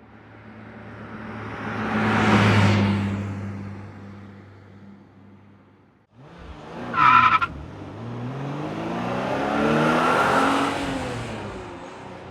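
Car sound effects: a car drives past, rising and fading. About seven seconds in a second car's tyres squeal briefly, then its engine revs up, rising in pitch, and it passes by and fades.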